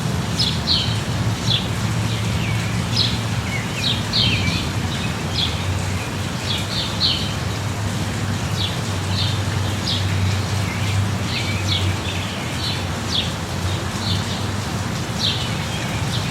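Steady light rain with birds chirping over it, short high chirps coming a few times a second, and a low steady rumble underneath.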